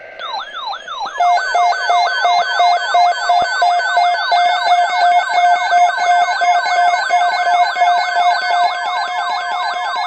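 Several NOAA weather radios sounding their alert alarms at once for a tornado watch. Quick falling electronic sweeps, about four a second, overlap with steady on-off beeping tones, building up over the first second.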